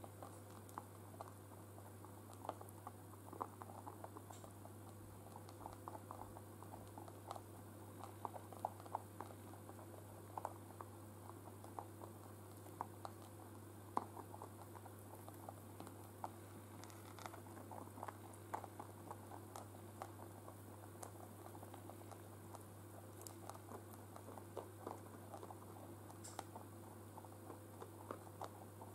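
Three domestic rabbits eating hay from a bowl: faint, rapid, irregular crunching clicks of chewing and hay rustling, several a second, over a steady low hum.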